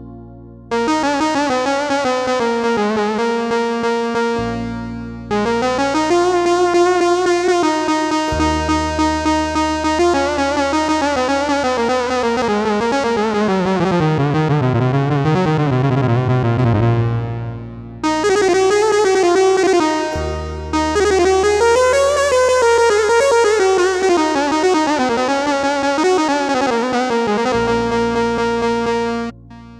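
Sampled Levantine sha'bi buzuq voice played on a Korg arranger keyboard: a winding, ornamented melody with fast repeated notes over held low bass notes, in phrases separated by short breaks.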